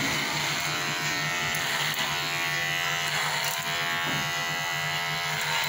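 Electric hair clippers running with a steady buzz while cutting hair over a comb.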